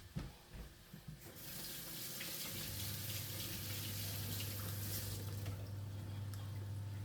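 A few light knocks, then a kitchen tap runs water into a sink or pot for about four seconds before it is turned off. A steady low hum starts about three seconds in and carries on.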